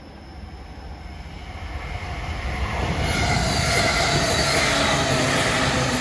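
E231-1000 series electric multiple unit, two sets coupled, approaching and passing at reduced speed. Its wheels running on Speno-ground rails give a resonant rail-grinding tone over the running noise. The noise builds for about three seconds and then holds loud and steady.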